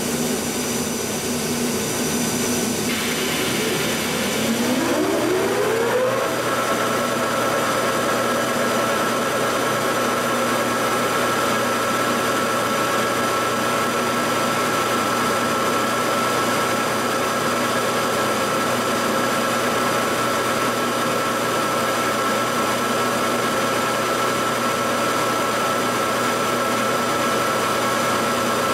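Large 40 hp Monarch Series 90 engine lathe starting its spindle. A whine rises in pitch over about two seconds, starting about four seconds in, then the machine runs steadily at speed with a constant gear whine.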